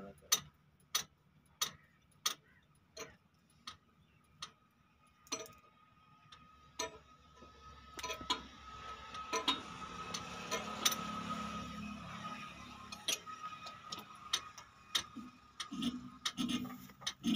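Sharp metallic clicks, about one every second, from hands working the controls of a stopped old Ruston Hornsby diesel engine while it is readied for a start. In the middle a hiss with a thin steady whistle swells and fades.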